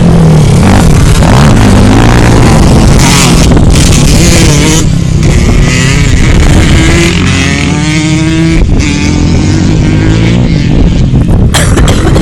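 ATV engine running loud, revving up several times in the middle, its pitch climbing with each rev.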